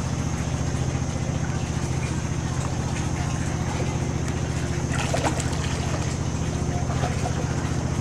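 An engine running steadily at constant speed: a low hum with a fast, even beat and a faint high whine. A brief, brighter noise comes about five seconds in.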